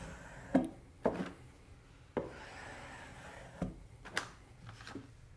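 Woodworking clamps being handled on wooden panels: several sharp knocks of clamp against wood, and a scraping slide lasting about a second midway.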